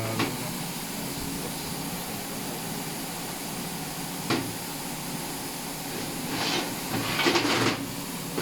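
Steady workshop hum and hiss with a sharp click about four seconds in, then a couple of seconds of hissing, rustling noise near the end.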